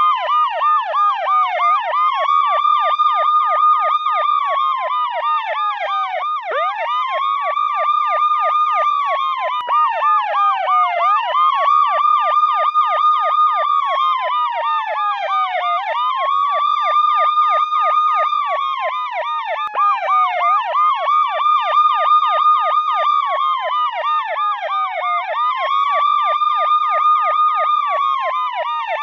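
Electronic police siren sounding continuously: a slow wail that jumps up, holds, then glides down about every five seconds, layered over a rapid yelping warble.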